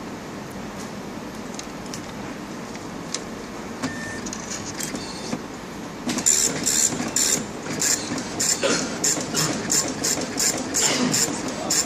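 Compuprint SP40 plus dot-matrix passbook printer. It is quiet apart from a low hum and faint mechanical ticks at first, then about halfway in it starts printing in short rasping bursts, about three a second.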